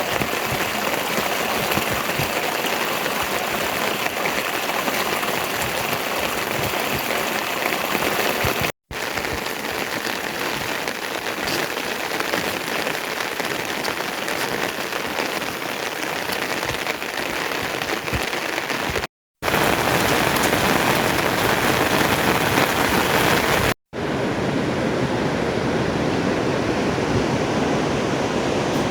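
Steady hiss of rain and running water, with no voices. Three brief silences break it about 9, 19 and 24 seconds in, and after the last the sound is deeper, more like a rushing stream.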